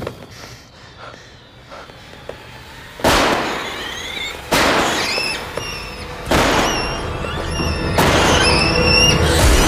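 Fireworks going off: four sudden blasts about a second and a half apart, each followed by shrill, wavering whistling.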